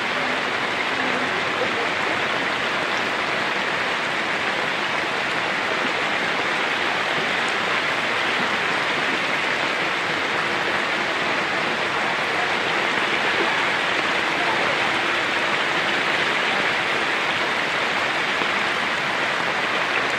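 Heavy tropical rain falling steadily, a dense, even hiss that stays at the same level throughout.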